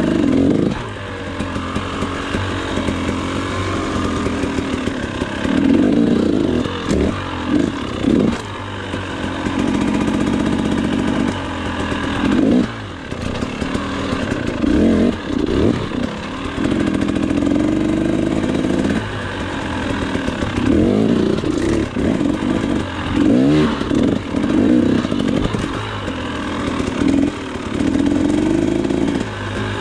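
Dirt bike engine being ridden, the throttle opened and closed over and over so the revs climb and drop every second or two, as it goes over logs and dirt mounds.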